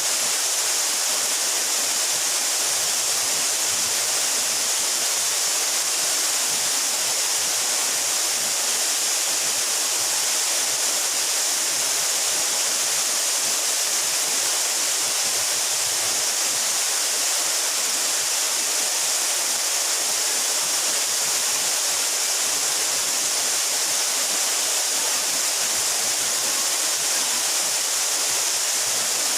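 A 12-metre mountain waterfall pouring steadily: an unbroken, even rush of water, bright and hissy in the treble.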